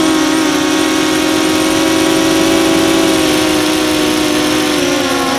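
DJI Phantom 2 quadcopter's motors and propellers running steadily in flight, heard from the action camera on the airframe: a steady hum of several stacked tones with a hiss. The pitch eases down slightly near the end.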